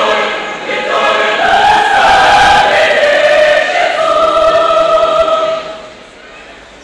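Mixed church choir singing a sacred piece in full chords with long held notes. About five and a half seconds in the choir releases on the conductor's cut-off and the sound dies away into a short pause.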